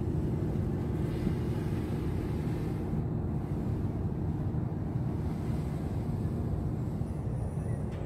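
Steady low background rumble with a faint hum, even throughout, with no distinct events.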